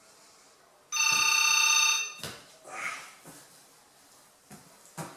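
A phone ringing with a bright, trilling bell-like ringtone for about a second. It is followed by soft knocks and rustling as a person shifts and gets up off a sofa.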